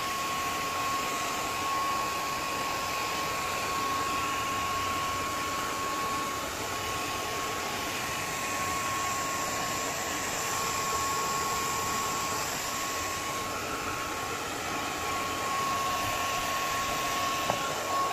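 Handheld hair dryer running steadily while drying a freshly bathed dog: an even rush of air with a steady whine.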